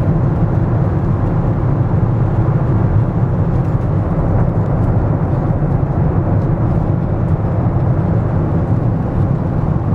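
Steady cabin noise of a Boeing 777-200 airliner in flight: an even, low rush of airflow and engine noise.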